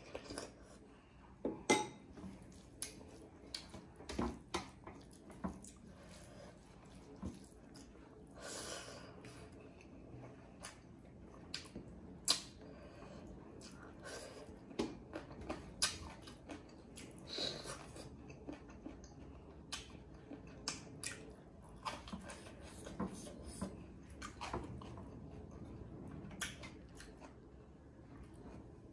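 Eating sounds: chewing of buffalo meat and rice, with fingers mixing rice on a metal plate and irregular short clicks of plate and spoon.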